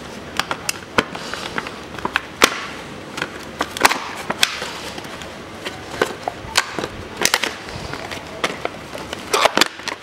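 Stiff clear plastic blister packaging crackling and clicking as gloved hands flex it and pull a pair of pliers out of it, in irregular sharp crackles.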